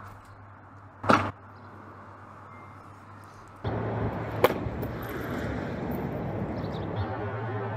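A hard-shell field case packed with colored pencils hitting the concrete after a drop from a second-story window: one loud, sharp smack about a second in, then a second single sharp impact about four and a half seconds in over a steady outdoor hum.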